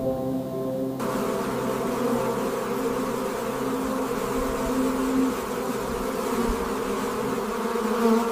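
A mass of honeybees buzzing together, a dense and steady buzz that swells in about a second in and holds.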